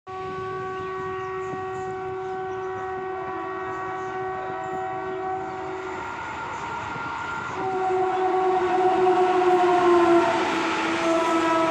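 Indian Railways locomotive horn blowing one long blast for about six seconds. After a short gap, a second horn blast starts and its pitch drops as a train passes close by. The rumble and rattle of the passing train grows louder in the second half.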